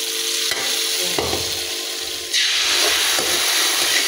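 A hot ghee tadka of browned onions sizzling as it meets the kadhi, with a light scrape of the pan. The sizzle grows louder a little over two seconds in.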